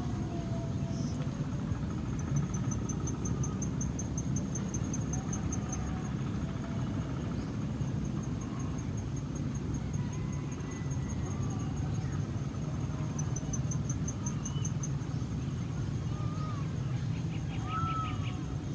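Outdoor ambience: an insect trilling in fast, even pulses in two stretches, with faint scattered bird chirps, over a steady low rumble.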